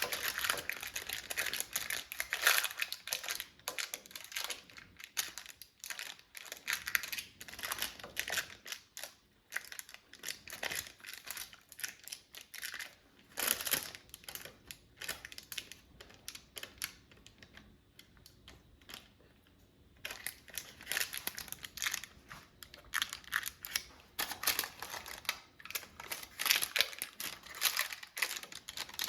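A spatula scraping thick chocolate fudge out of a bowl into a baking dish, with parchment paper crinkling; irregular short strokes, with a few quieter seconds past the middle.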